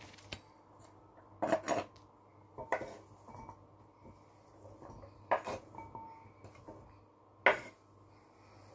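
Kitchen knife chopping cucumber on a wooden cutting board: sharp knocks of the blade on the board at uneven intervals, a second or two apart.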